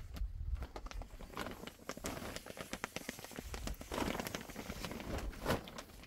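A large sheet of clear plastic sheeting crinkling and rustling as it is handled and cut, with many small crackles and a louder swell about four seconds in.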